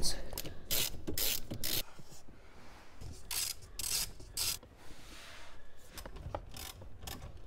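Hand ratchet with a socket and extension clicking in several short runs, with a quicker run of clicks near the end, as it loosens the 10 mm bolts that hold a car's factory radio in the dash.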